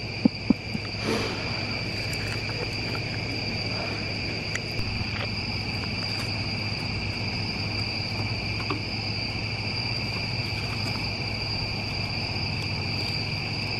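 Night insects chirring in a steady, unbroken chorus on one high note.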